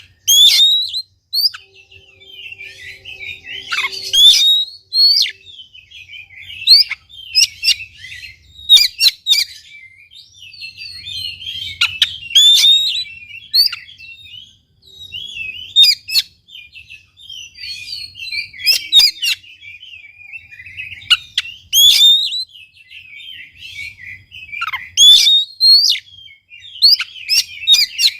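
Oriental magpie-robin in full, energetic song: rapid bursts of varied whistled phrases and sharp, scratchy notes, coming again and again with short pauses between them.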